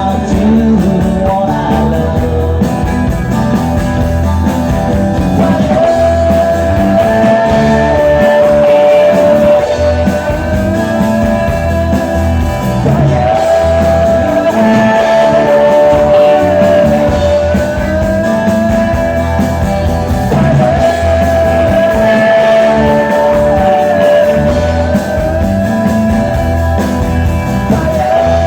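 Live rock band playing loudly, a voice singing a melody of long held notes over electric guitar.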